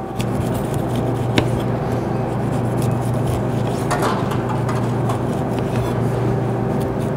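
A steady low hum runs throughout. Over it, a chef's knife cuts through pineapple rind onto a wooden cutting board, with a couple of short sharp strokes, one about a second and a half in and one about four seconds in.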